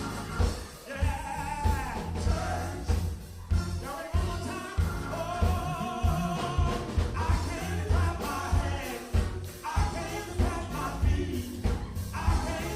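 Gospel music: voices singing over a band with a steady drum beat.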